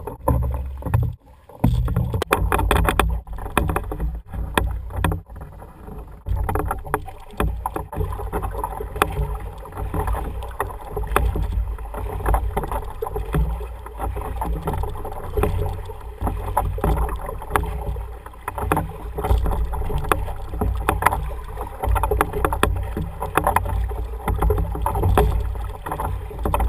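Several rowers pulling wooden oars in an umiak on calm water: oars dipping and splashing with each stroke, with frequent short knocks, over a steady low rumble.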